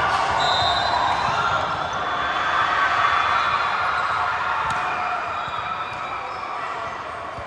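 Indoor volleyball play in a large, echoing gym: sneakers squeaking on the hardwood court, the ball being hit, and players' voices ringing through the hall. The sound eases off as the rally ends.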